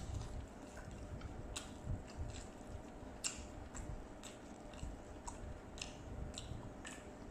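A person chewing food: soft, wet mouth clicks and smacks at irregular intervals.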